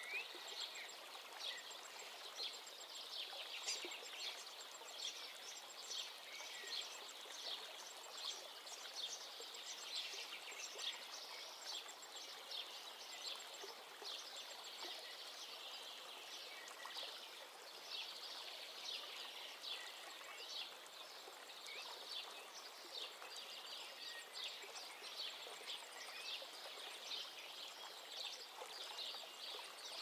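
Small birds chirping in quick, dense runs, with now and then a short whistle, over a steady soft rush of rippling water.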